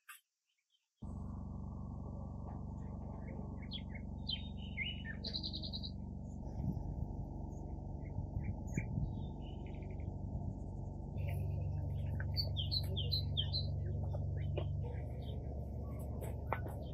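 Small birds chirping and tweeting in short, scattered calls over a steady low hum that starts about a second in.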